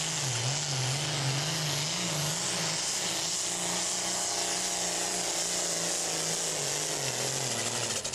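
Super Farm class pulling tractor's turbocharged diesel engine running flat out under the load of the weight sled, its pitch wavering rapidly up and down at first and then holding steadier, over a loud hiss.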